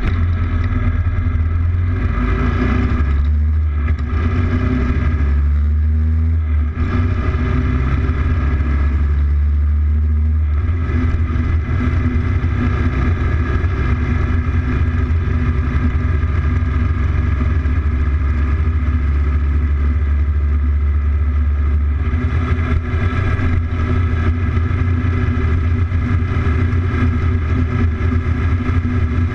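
Motorcycle engine running steadily at road speed, its note shifting a few times as the throttle or gear changes.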